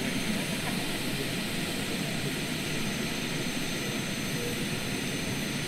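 Small gas-turbine engine of a large radio-controlled scale H145 helicopter running steadily on the ground with its rotor turning: a steady rushing noise with a thin, high, held whine.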